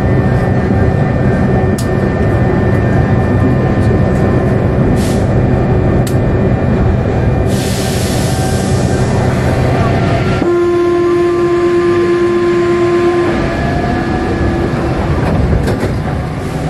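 Rubber-tyred Paris Métro line 4 train running through a tunnel, a loud steady rumble and hum. About seven and a half seconds in a hiss joins for a few seconds, and about ten seconds in the rumble drops away, leaving a steady whine for about three seconds.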